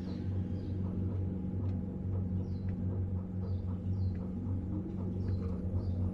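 Tour boat's motor running with a steady low hum, with a scatter of faint short high chirps over it.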